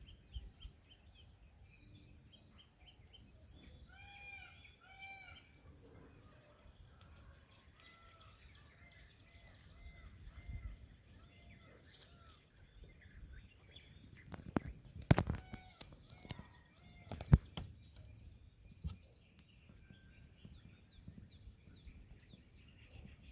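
Birds calling over a steady high-pitched insect drone, including a pair of short pitched calls and then a run of shorter repeated notes. Two loud sharp knocks sound near the middle.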